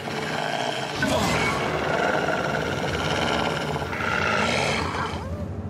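Dramatic background music with sustained tones, swelling about a second in.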